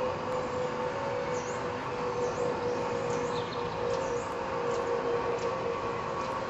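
Electric motor of a patio awning running steadily as the awning extends, a constant hum with a steady tone.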